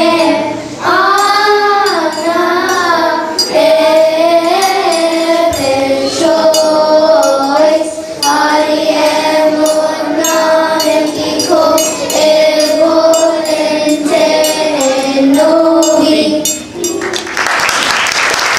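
Children's choir singing a hymn together in held, wavering notes. The singing ends about 17 seconds in and applause breaks out.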